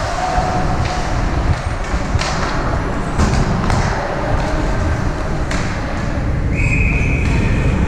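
Ice hockey game in a rink: a steady low rumble with a few sharp clacks of sticks and puck, then a referee's whistle blown once near the end and held for over a second.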